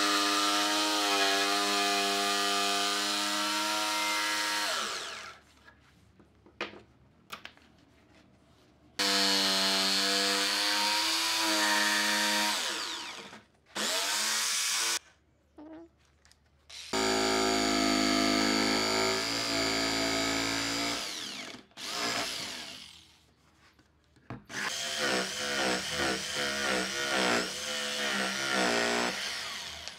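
An electric power tool run in five bursts of one to five seconds each. Its motor whine winds down in pitch as each burst ends, and the pitch wavers through the last burst.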